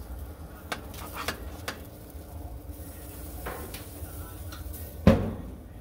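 Metal tongs clicking and scraping against a metal baking pan, a few light clicks, then one loud metal clang with a short ring about five seconds in as the Weber gas grill's lid is shut.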